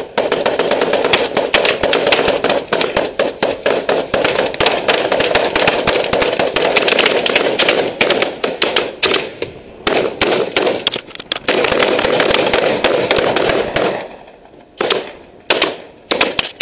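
Rifle fire: many overlapping shots in a near-continuous barrage, with a few short breaks, thinning to separate single shots near the end.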